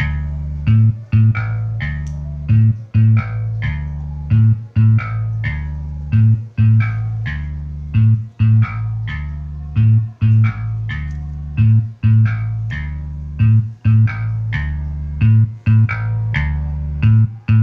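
Bass-heavy music with a repeating plucked bass line and guitar, played loud through a 12-inch woofer cabinet driven by a DIY mono power amplifier; the builder calls the sound clear, without hoarseness.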